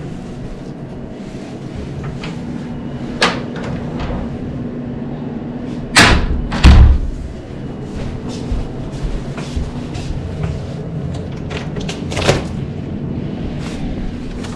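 A few knocks and thumps, the loudest a pair about six seconds in, under a second apart, with lighter clicks and taps between.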